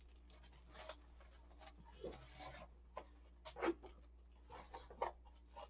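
Faint, scattered rustling and handling noises from the plastic-wrapped diamond painting canvas being unpacked, a short rustle or tap about every second.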